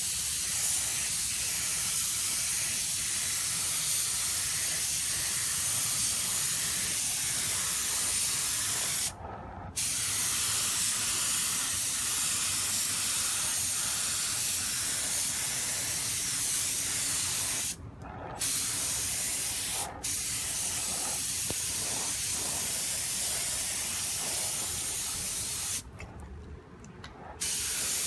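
Compressed-air paint spray gun hissing steadily as it sprays paint onto a motorcycle body panel. The trigger is let go briefly a few times: about a third of the way in, twice just past halfway, and shortly before the end.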